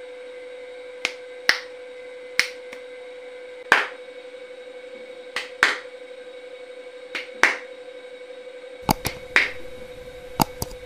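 Finger snaps and hand claps, sharp single cracks that come mostly in pairs a fraction of a second apart, about ten in all: a double snap or clap meant to trigger a sound-sensor clap switch. A steady faint hum runs underneath.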